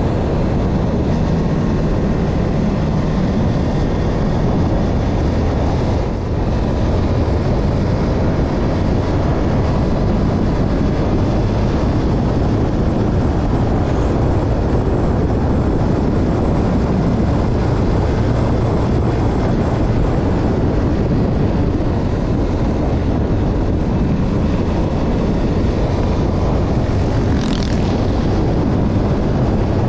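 Steady road noise of a vehicle travelling at speed: a continuous rush of wind and engine and tyre noise, heaviest in the low end.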